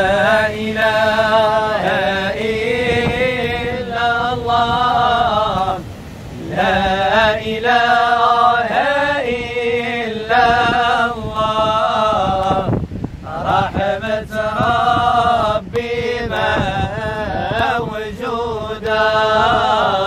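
A small group of men singing madih and samaa devotional song together, unaccompanied, in long sung phrases with short breaks for breath, while they clap their hands.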